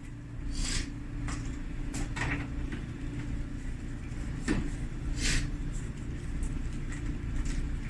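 A handful of short knocks and scrapes from the metal cabinet panels of a Kenmore dryer being handled during disassembly, over a steady low hum.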